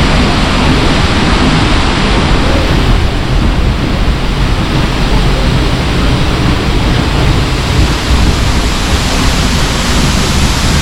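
Loud, steady rush of Seljalandsfoss, a 60-metre waterfall, heard close up as its water pours down into the pool.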